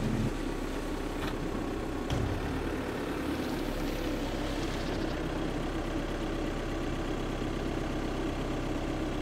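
Car engine idling steadily as the car creeps slowly forward at walking pace, with a couple of faint clicks early in the stretch.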